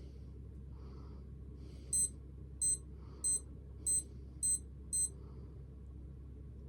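A digital sports watch beeping six short, high-pitched times about 0.6 s apart as its buttons are pressed to set the time.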